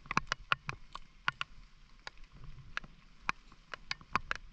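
Water dripping and splashing: irregular sharp wet ticks, about three or four a second, over a faint hiss.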